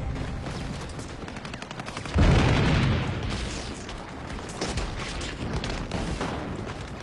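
Rapid gunfire, rifle and machine-gun shots in quick succession throughout. A heavy explosion comes about two seconds in and dies away over a second or so.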